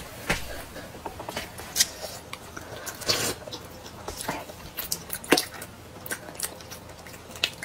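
Close-miked eating sounds: chewing and biting of soft food, with scattered sharp clicks of chopsticks against a plate.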